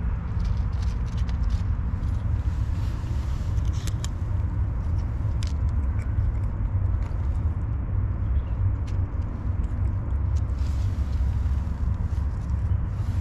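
A cat eating dry kibble, with many small, sharp crunches scattered throughout, over a steady low rumble that is the loudest sound.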